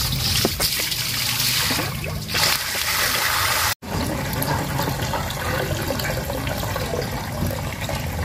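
Water from a garden hose pouring into a stainless steel basin, splashing on the metal bottom at first and then running into the water as the basin fills. It breaks off abruptly for an instant about four seconds in.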